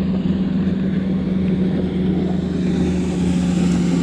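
Boat motor running steadily, a constant hum that dips slightly in pitch near the end, over a rushing haze of wind and water.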